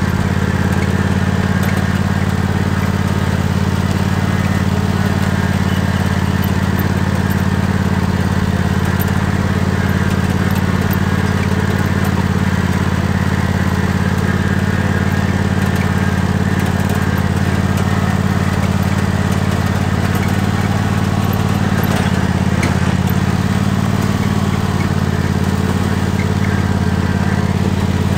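Tractor engine running steadily under way, loud and even, with no change in speed.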